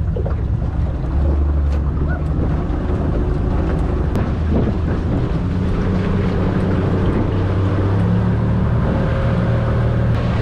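A small fishing boat's motor running steadily as the boat moves ahead, its low hum shifting up slightly near the end, with wind buffeting the microphone.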